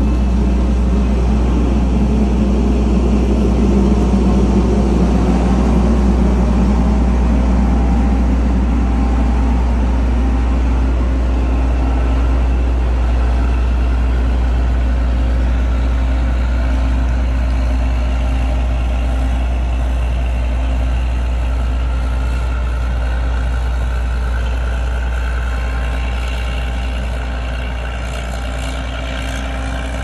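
John Deere combine's diesel engine running as the machine drives past close by and then pulls away. The sound is loudest early on and fades gradually as it moves off.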